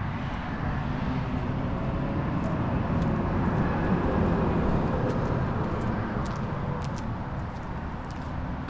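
Steady outdoor road-traffic rumble that swells about three to five seconds in and then eases off, with faint scattered ticks.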